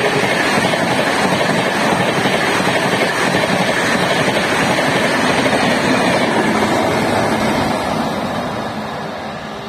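Express train's passenger coaches passing close by at high speed, a steady rush of wheels on rails and moving air. It fades over the last two seconds as the end of the train pulls away.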